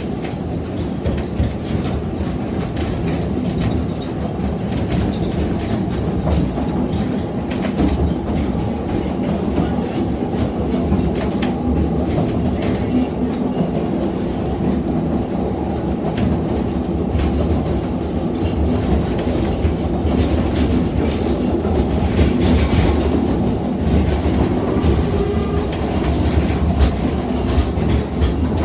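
Narrow-gauge railway passenger carriage running along the track, heard from inside the carriage: a steady low rumble with frequent irregular clicks of the wheels over the rail joints.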